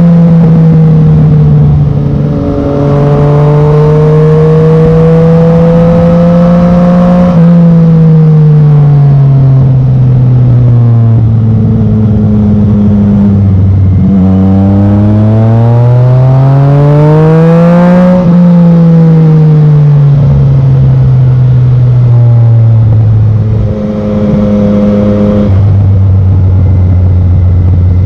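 Yamaha MT-09's three-cylinder engine through a Black Widow carbon full exhaust, ridden on the road. The engine note climbs slowly, then falls as the throttle is rolled off, rises steeply around the middle and falls away again. There are short dips in level about two seconds in and near the end, where the pitch drops.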